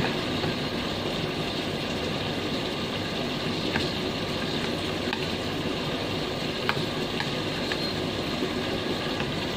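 Steady rushing background noise with no change in pitch. Over it come a few faint clicks of a spoon and fork against a bowl.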